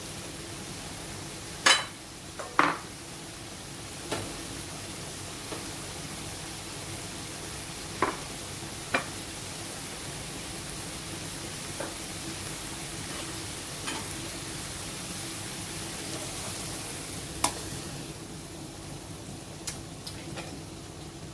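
Angled gourd, egg and shrimp stir-fry bubbling in a wok with a steady sizzling hiss, broken by a few sharp clicks or pops. The hiss eases a little near the end.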